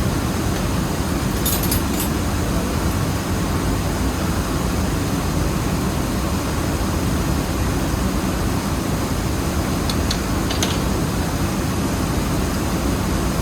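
Rice-mill machinery running with a steady, loud, low drone, with a few brief metallic clinks about one and a half seconds in and again near ten seconds.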